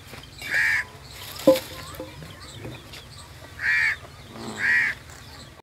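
A bird calling: three short harsh calls, the last two about a second apart, with a short sharp note about a second and a half in.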